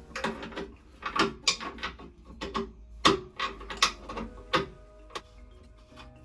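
Irregular sharp clicks and knocks of hand tools working on plumbing fittings, about a dozen over five seconds, dying away near the end.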